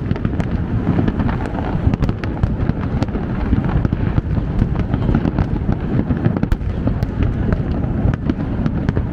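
New Year fireworks across the city bursting continuously: a dense, steady rumble of distant booms with many sharp cracks scattered throughout.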